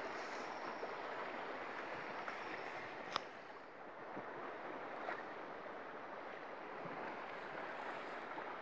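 Shallow stream running steadily over its bed, with a sharp click about three seconds in and a fainter one about two seconds later.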